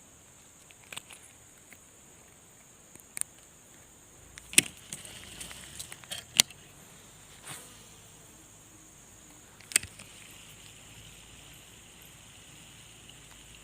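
A few sharp clicks and taps, the loudest two in the middle, over a steady high-pitched drone like insects.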